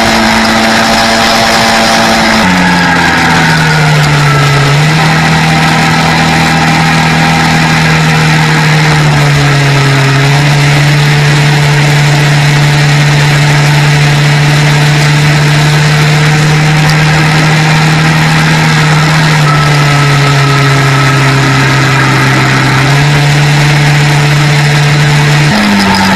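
Quad bike engine running steadily at road speed, its pitch dropping and rising in steps several times, over steady road and wind noise.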